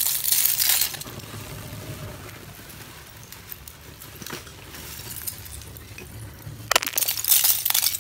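Brittle roasted multani mitti (fuller's earth clay) shards dropped by the handful onto a heap of shards, clattering and clinking. One pour comes at the start and another near the end, with a single click in between.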